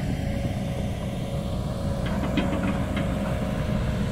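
Sany excavator's diesel engine running steadily at working revs, a low rumble with a faint steady whine, and a few short knocks about two seconds in.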